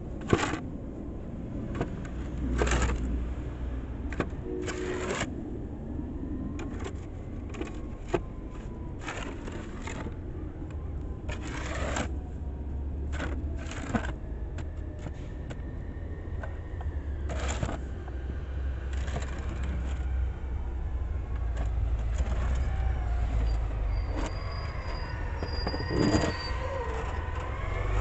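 Red plastic snow shovel scraping along a concrete sidewalk as snow is pushed and cleared, in repeated short scrapes every second or two.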